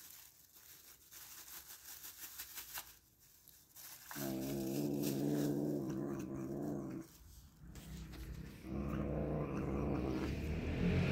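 Cat growling low and steady while guarding a piece of baked pork chop it is eating. The first growl starts about four seconds in and lasts about three seconds; a second begins about nine seconds in and carries on.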